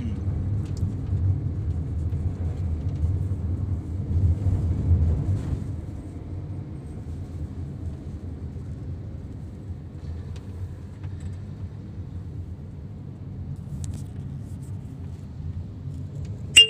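Car cabin noise from inside a moving car: a steady low rumble of engine and tyres, louder for the first five seconds or so and then easing off. A short sharp sound comes right at the end.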